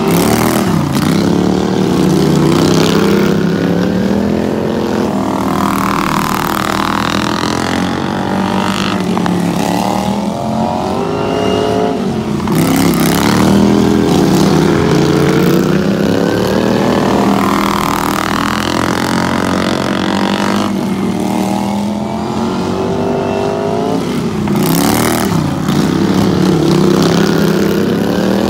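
BP/CP-class racing lawn mowers' engines running hard, revving up and backing off in repeated cycles several seconds apart as they lap the track.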